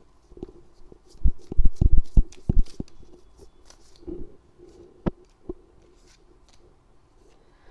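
Playing cards being handled on a tabletop: a cluster of short taps and knocks about a second in, then two sharp clicks a little past the middle as a card is laid down on the spread.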